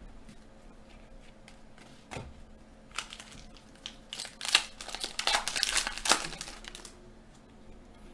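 Foil trading-card pack wrapper crinkling as it is torn open and handled, with a few light clicks of cards first and a dense crackling run from about four to seven seconds in.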